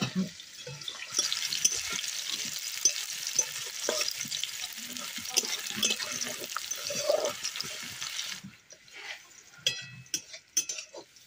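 Chopped onions sizzling in hot oil in a metal kadai, stirred with a steel ladle that knocks and scrapes against the pan. The sizzle cuts off suddenly about eight seconds in, leaving scattered clinks.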